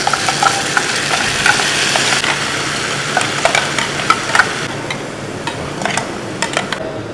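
Ground green masala paste sizzling in hot coconut oil in a pan as it is stirred, with the spoon clicking and scraping against the pan. The sizzle thins after about four and a half seconds, leaving mostly the spoon's knocks.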